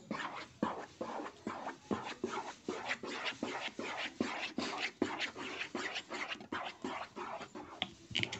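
Spatula stirring thick melted glycerin soap base in a frying pan, rhythmic scraping and sloshing at about three strokes a second as alcohol is worked in.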